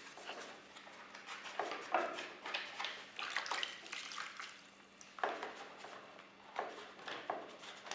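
Irregular rustling and light clicks from hands handling wires, terminals and plastic vacuum-cleaner parts while the wiring is moved onto a new motor.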